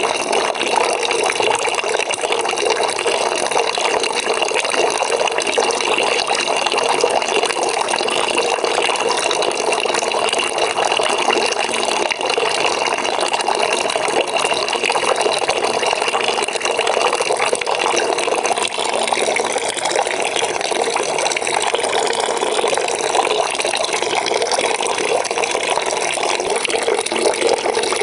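Water running steadily from a tap into a bucket as it fills, a continuous splashing rush.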